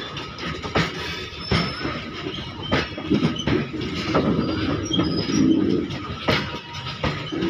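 Freight train of open wagons rolling past: a steady rumble of wheels on rail, broken by irregular sharp knocks as the wheels strike rail joints, with a thin squeal from the wheels.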